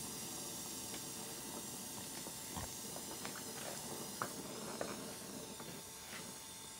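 Handheld gas torch flame hissing steadily while it heats copper refrigeration tubing to free its brazed joints. A few light metallic clicks and taps from the tubing being handled.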